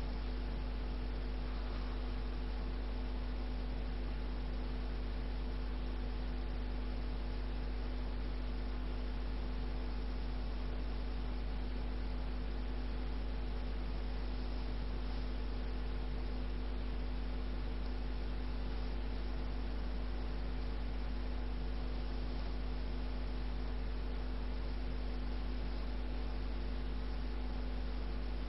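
Steady low mains hum with constant tones and an even hiss, and no snoring or breathing heard: the silence of a breathing pause in obstructive sleep apnea, between the snoring and the snort with which breathing resumes.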